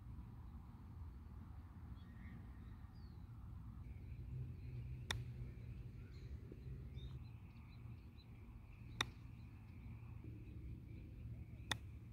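Three crisp clicks of a Callaway wedge striking a golf ball, about four and then three seconds apart, over a faint outdoor background with faint bird chirps.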